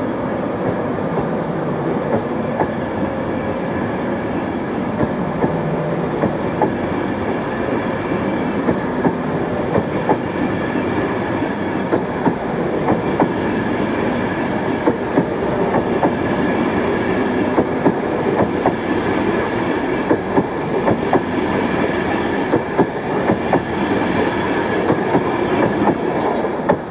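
LNER InterCity 225 Mark 4 coaches rolling past along the platform, a steady rumble with the wheels clicking regularly over rail joints, fading fast at the very end as the last coach clears.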